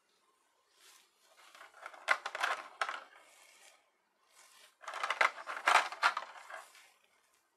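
Clear plastic blister tray crackling and clicking as hard plastic figure parts are pried out of it by hand, in two spells of handling: one starting about a second in, the other about four and a half seconds in.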